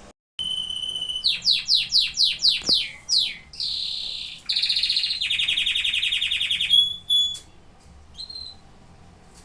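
Domestic canary singing a song phrase. It opens with a held whistle, then a run of quick falling notes at about four a second, a buzzy note and a long rapid trill. A short chirp follows near the end.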